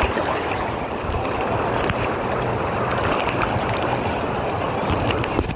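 Water churning and rushing around a camera plunged into a water slide's splash pool: a steady, muffled wash that drops away just before the end.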